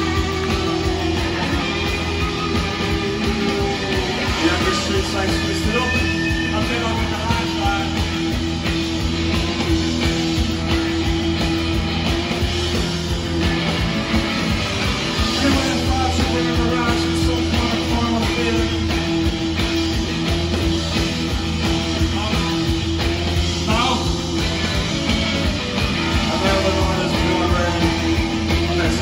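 Post-punk band playing live through a concert PA: electric guitars, bass and drums with a sung lead vocal, over a droning guitar note held steadily underneath. Heard from within the crowd.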